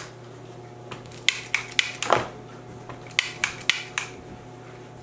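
OXO Good Grips cookie press clicking as its lever is squeezed to push out spritz dough: two quick runs of about four sharp clicks, with a duller knock about two seconds in.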